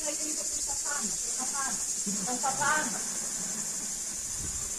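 A steady high-pitched insect chorus of summer crickets or cicadas, shrilling without a break.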